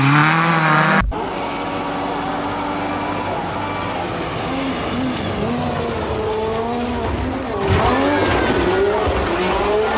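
Rally car engines revving hard at speed, the pitch rising and falling as the throttle and gears change. About a second in the sound cuts abruptly to a different car's engine, which rises again near the end.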